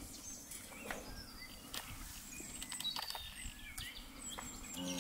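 Outdoor farm ambience of small birds chirping and twittering, with scattered sharp clicks and a steady low hum underneath. A brief low grunt-like sound comes just before the end.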